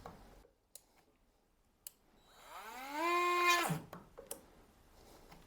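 Battery-powered Parkside rotary tool spinning up with a rising whine, running briefly at a steady pitch and winding down, while enlarging the hole in a pump-head fitting. A couple of small clicks come before it and one after.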